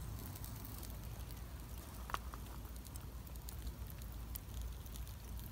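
Faint, scattered crackling and ticking from a charcoal bed with skewered trout grilling over it, over a low steady rumble, with one sharper click about two seconds in.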